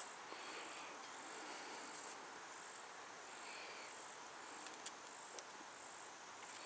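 Faint steady insect chirring, with two short sharp clicks about five seconds in.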